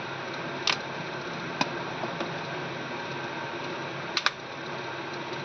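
Back cover of a Samsung Galaxy A03 Core being pried off with an opening tool: a few sharp clicks as the cover's clips let go, including a quick double click about four seconds in, over a steady fan hum.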